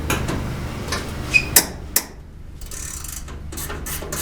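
Ratchet wrench loosening the hood bolts: a few separate clicks, then from about three and a half seconds in an even run of quick ratchet clicks.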